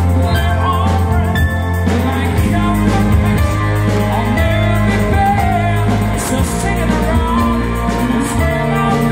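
Live band music through the PA system: a singer over the band, with strong deep bass notes that change about two seconds in.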